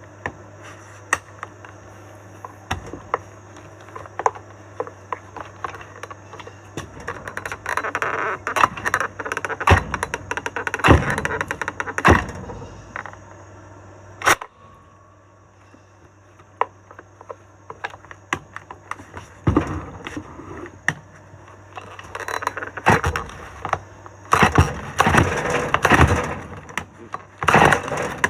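Irregular knocks, clicks and rattling clatter of a chainsaw being handled before it starts, with bursts of clatter around the middle and near the end, over a steady low hum; the saw's engine is not yet running.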